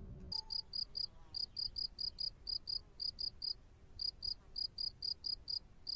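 Cricket chirping sound effect: short high chirps, about five a second, starting a moment in and pausing briefly midway. It is the stock comic cue for an awkward silence.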